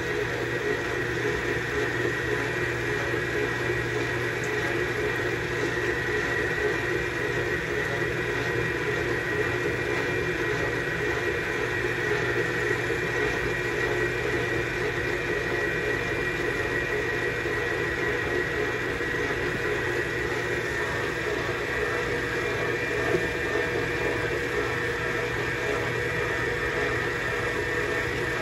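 Electric stand mixer running steadily with its dough hook, kneading pie-crust dough: a constant motor hum with a faint whine.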